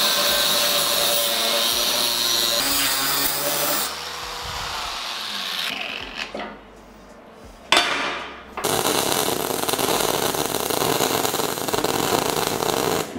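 Angle grinder cutting through the steel of an old screw clamp for about four seconds, then dropping to a quieter stretch. After a sharp click a little before the eight-second mark, electric arc welding crackles steadily for the last four and a half seconds, stopping just before the end.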